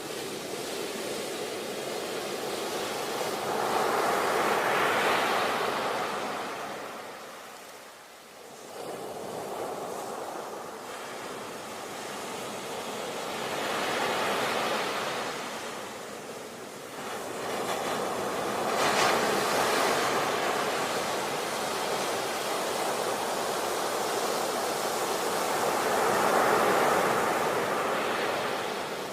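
Ocean waves breaking and washing in, the surf swelling and ebbing every few seconds, with a brief lull about eight seconds in.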